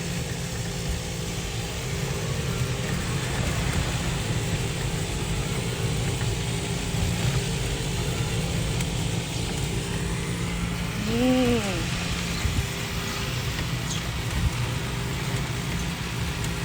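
Small electric cart driving slowly, with a steady low rumble of road and wind noise and a faint constant motor hum. About eleven seconds in there is one short pitched sound that rises and then falls.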